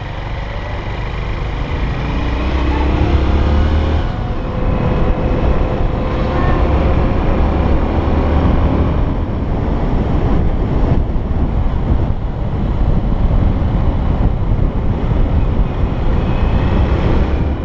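Honda XR125 trail bike's single-cylinder four-stroke engine running while riding, under heavy wind rumble on the microphone.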